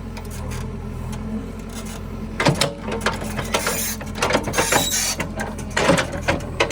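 JCB 3DX backhoe loader's diesel engine running steadily, with a run of irregular clanks and rattles from the working machine starting about two and a half seconds in.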